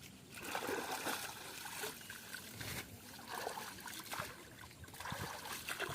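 River water trickling and sloshing, moving unevenly.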